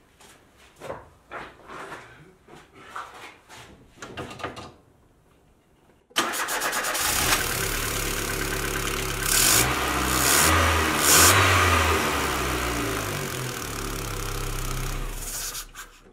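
Audi 80's four-cylinder Mono-Motronic engine running, which comes in suddenly about six seconds in and is revved up and down a few times in the middle before cutting off just before the end. It is running normally on a newly fitted contactless throttle position sensor. Before it there are a few scattered knocks and clicks.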